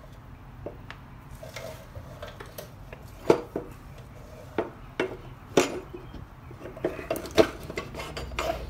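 Steel rear axle being slid by hand through the swingarm, rear wheel hub and spacers of a Harley-Davidson Road King, clinking and knocking metal on metal. There are several irregular sharp knocks, the loudest about three and a half and seven and a half seconds in.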